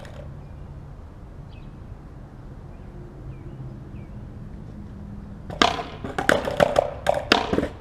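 Skateboard ollie attempt: the tail pops on the concrete and the board clatters in a quick run of loud sharp knocks with a ringing tone, about five and a half seconds in. Before that only a low steady outdoor background.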